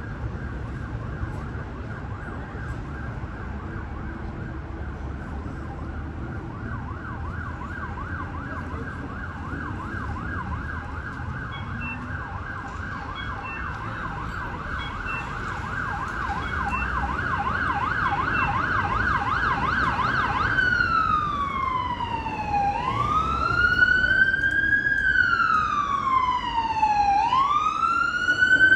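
Emergency vehicle siren drawing closer and growing louder. It sounds a fast yelp at first, then about twenty seconds in switches to a slow wail that falls and rises every few seconds, over the low rumble of street traffic.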